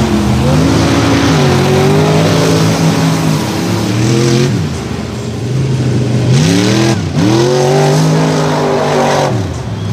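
A mud bog truck's engine revving hard twice. Each time its pitch climbs, holds high for a few seconds, then drops, the second run starting a couple of seconds after the first ends.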